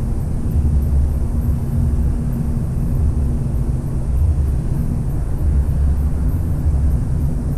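Motorboat engine running at a steady speed, a continuous low drone with a rushing noise over it.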